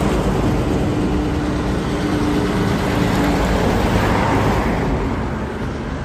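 Vintage red half-cab double-decker bus driving past, its diesel engine running steadily, loudest about three to four seconds in and easing off slightly toward the end.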